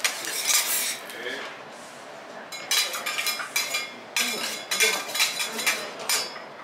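Metal utensils clinking and scraping in quick runs of sharp, ringing strokes, with a lull of about two seconds after the first second.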